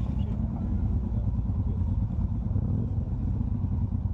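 Motorcycle running, a steady low rumble.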